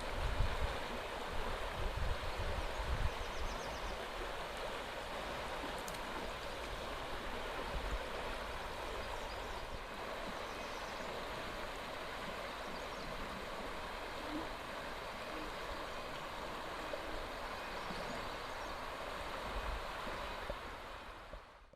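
Steady rushing water, with wind buffeting the microphone in the first few seconds; the sound fades out at the end.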